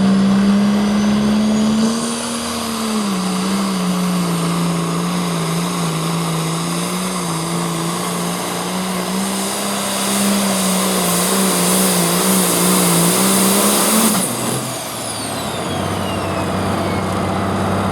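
Pro stock pulling tractor's turbocharged diesel engine running flat out under load while pulling the sled, holding a steady high pitch for about fourteen seconds. Then the throttle is shut and the engine note drops away, leaving a high whine falling in pitch as the turbocharger winds down.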